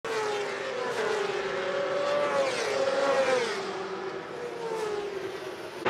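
Endurance racing motorcycles at high revs, passing at speed, their engine note rising and then falling about halfway through.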